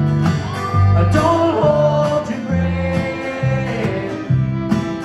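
Live acoustic country band playing: a fiddle's sliding melody over a strummed acoustic guitar and an upright bass changing notes every half second or so.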